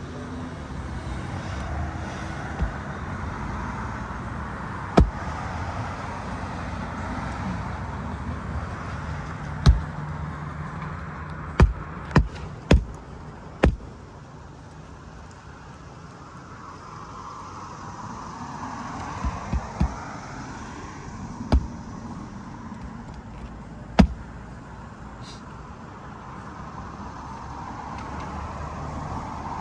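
About ten sharp, irregular strikes driving roofing nails into asphalt shingles, with a cluster of quick blows near the middle, over steady traffic noise.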